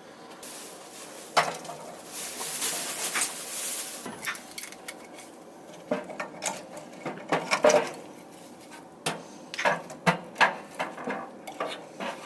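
Metal parts of a camping wood stove clinking and clanking as they are handled and fitted together, in irregular knocks. A hissing rustle runs through the first few seconds.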